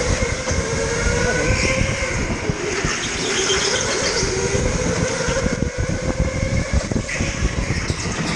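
Electric go-kart motor whining while racing, its pitch wavering up and down with speed, over a dense low rumbling noise.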